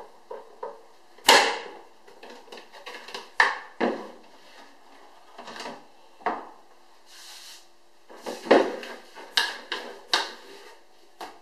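Hard plastic parts of a stand mixer and its plastic mixing bowl knocking and clunking as they are handled: the mixer head is lifted off and the bowl picked up and tipped to turn out the dough. Irregular sharp knocks, about eight of them, with short quiet gaps between.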